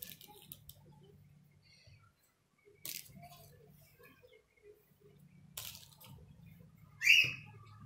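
Quiet handling sounds as soft baked buns are lifted off a parchment-lined baking tray and set down on a serving plate: light rustles and a few brief taps, with a short, louder sound near the end, over a faint steady low hum.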